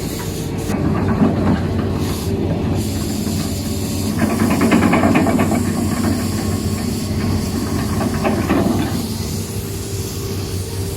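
Excavator engine running with a steady drone and a hiss, with a louder stretch of dense clattering from about 4 to 9 seconds in.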